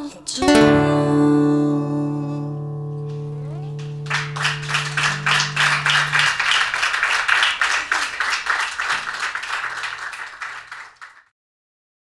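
Classical guitar strikes a final chord that rings on for several seconds as the song ends. From about four seconds in comes a fast, even patter of sharp hits, and the sound cuts off abruptly near the end.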